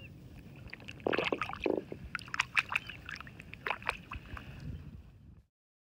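Water splashing and sloshing at the side of a kayak as a small fish is let go in the water, with a run of sharp clicks and knocks from about a second in; the sound cuts off suddenly near the end.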